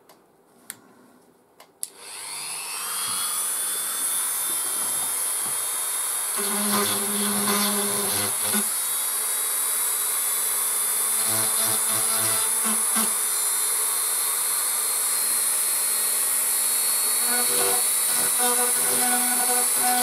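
A couple of clicks, then a high-speed rotary tool fitted with a grinding stone switches on about two seconds in, spins up to a steady high whine and keeps running. Its sound changes in spells as the bit is worked against the plastic case, grinding off excess glue to flatten a channel.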